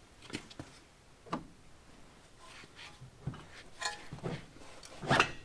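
A few light clicks and knocks at irregular spacing, the strongest about five seconds in: the sterndrive outdrive being shifted as its driveshaft, engaged in the engine coupler, is worked toward the gimbal bearing.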